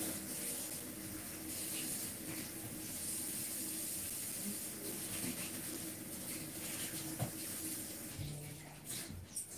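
Kitchen tap running in a steady hiss, shut off near the end.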